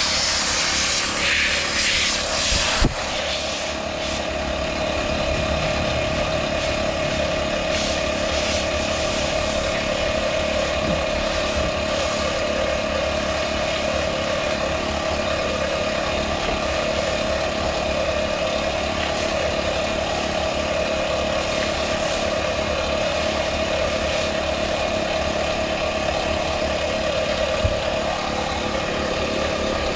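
Portable air compressor running steadily with an even motor hum, refilling a car tire that is losing air through a screw puncture. A hiss in the first few seconds ends at a sharp click.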